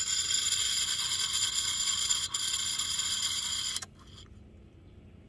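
Fishing reel being cranked: a steady, high-pitched whir from the reel's gears that starts abruptly and stops suddenly after about four seconds.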